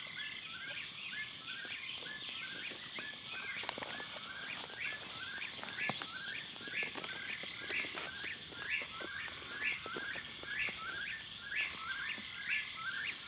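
Outdoor evening chorus at a lake: many short rising frog calls repeating several times a second, over a steady high insect drone, with a few faint knocks.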